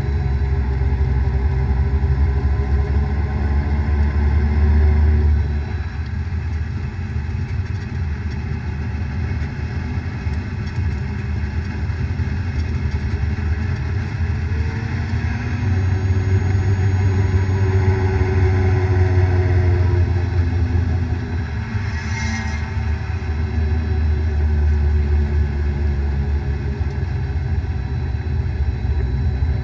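Vehicle on the move with a low drone from a bad bearing. The drone swells and fades three times, its pitch sliding up and down with the speed, and a brief sharp noise comes about two-thirds of the way through.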